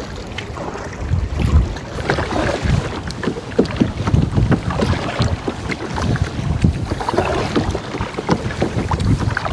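Kayak paddle blades dipping and splashing through the water in uneven strokes, with wind buffeting the microphone.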